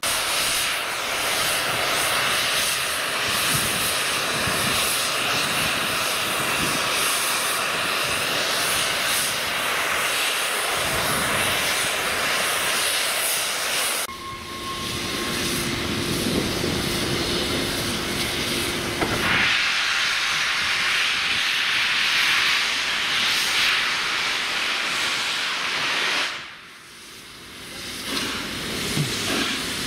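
Steam locomotive 60163 Tornado, a Peppercorn A1 Pacific, standing and blowing off steam: a loud, steady hiss. The hiss drops away briefly about 27 seconds in, then returns.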